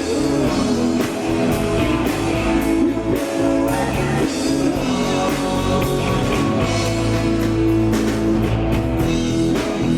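Rock band playing live: guitar, bass and drum kit, with a sung vocal line.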